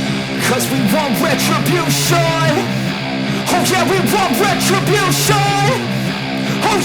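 Background rock music with singing and a steady beat.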